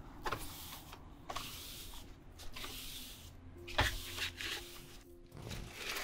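Irregular clicks, creaks and rustles of hands handling things, with one louder knock about four seconds in. Faint background music comes in a little past halfway.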